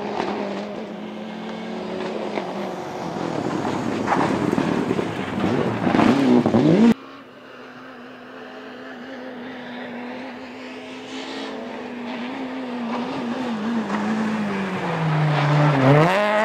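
Two rally cars passing in turn on a stage, engines revving hard as they approach. The first engine climbs in pitch until an abrupt cut about seven seconds in. Near the end the second, a Renault Clio, drops in pitch as it slows for a bend, then revs up sharply and loudly as it pulls through.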